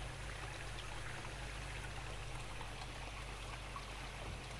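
Steady running and trickling water of a koi pond, with a low, steady rumble underneath.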